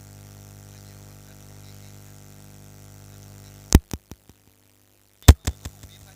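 Steady electrical hum from a sound system's microphone line. Then two loud pops come about a second and a half apart, each followed by a few quick, fading repeats. The hum drops out between the two pops and comes back after the second.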